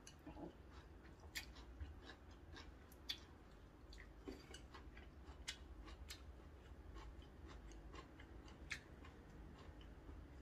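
Close-miked eating sounds: a mouthful of cold noodles being chewed, with many small sharp mouth clicks and light taps scattered unevenly throughout.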